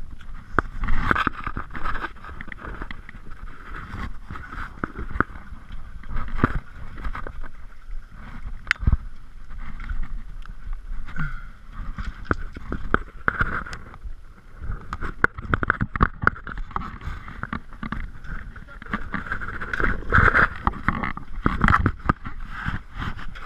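Wind rushing over the microphone in gusts, with frequent knocks and rattles throughout, as from moving over rough ground outdoors.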